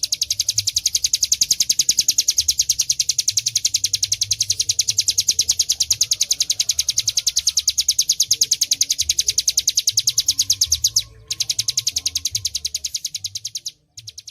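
Hill prinia (ciplek gunung) singing in full, vigorous voice: a long, fast trill of evenly repeated high notes. It breaks off briefly two-thirds of the way through, then resumes and stops near the end.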